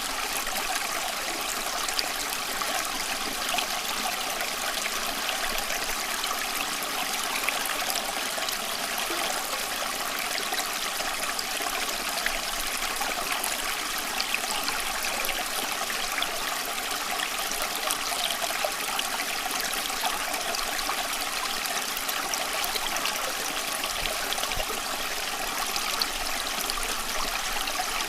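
Running water, a steady even rush with many small splashes and trickles, like a stream flowing over stones.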